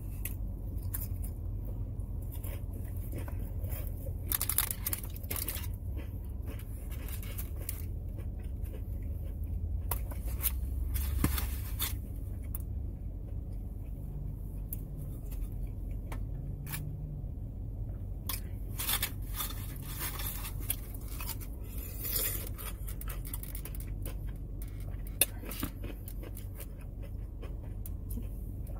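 Close-up eating sounds: saltine crackers topped with chicken salad crunching and being chewed, with scattered crinkles and scrapes of cellophane cracker packets and a plastic takeout tray. A steady low hum sits underneath inside the car cabin.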